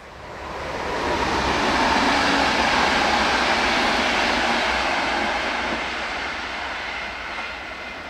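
Locomotive-hauled passenger train passing at speed on a main line: a steady rumble and rush of wheels on rail that swells over the first two seconds, holds, then fades as the train moves away.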